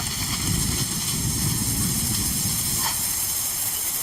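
A vehicle engine running steadily, with a low rumble.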